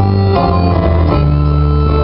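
Live band music: acoustic guitar under a held melody line, over a bass line that steps to a new note about a second in.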